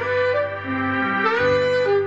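Saxophone playing a slow melody of held notes, stepping down to a lower note and back up again, over a steady low backing tone.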